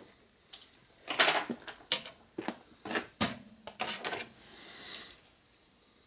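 Small steel valve-train parts and tools clinking and clattering as they are picked up and set down on a metal workbench: a string of sharp clicks, one clink that rings briefly about three seconds in, then a short scrape.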